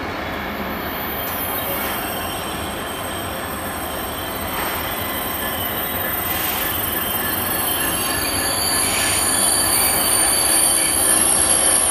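Class 66 diesel-electric locomotive with its two-stroke V12 engine running as it hauls a freight train slowly past, growing gradually louder as it draws closer. Thin, high-pitched wheel squeal rings over the engine and grows stronger in the second half.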